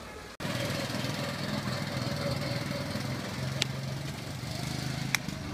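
Small petrol engine of a children's ride-on motor vehicle running steadily, coming in suddenly about half a second in. Two sharp clicks sound over it in the second half.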